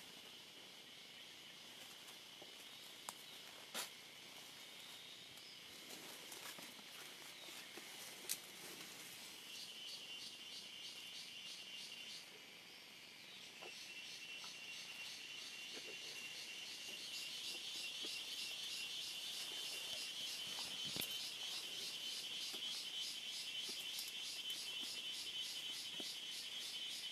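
Insects trilling in a steady high chorus with fast pulsing repeats, growing louder partway through. A few sharp clicks or snaps stand out, the loudest about four and eight seconds in.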